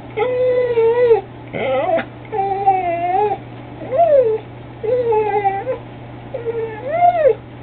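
A pet whining: a run of about six long, high, pitched whines, each under a second or so, bending up and down in pitch.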